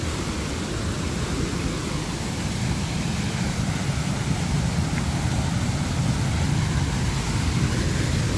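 Waterfall and whitewater rushing in heavy flow, a steady noise that grows a little louder toward the end.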